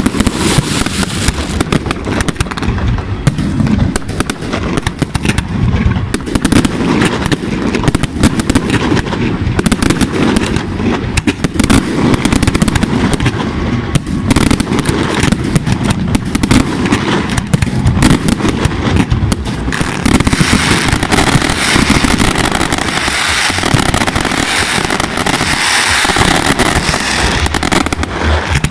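Aerial fireworks display: shells launching and bursting in a rapid, continuous barrage of bangs. About two-thirds through, a dense hiss thickens under the bangs.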